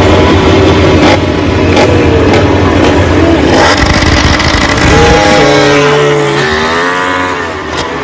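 MotoGP race bikes' engines running loudly on the start grid, with a sudden change of sound about three and a half seconds in. After that the engine pitch sinks and then climbs again in a rev near the end.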